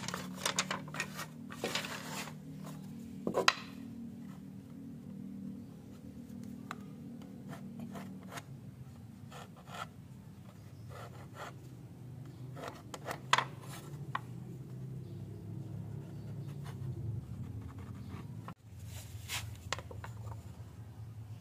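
Thin wooden strips clattering and knocking against wooden boards as they are handled, loudest in the first few seconds. Then comes the scratching and rubbing of a marker pen drawing lines along a wooden straightedge, with scattered light knocks. A low steady hum runs underneath.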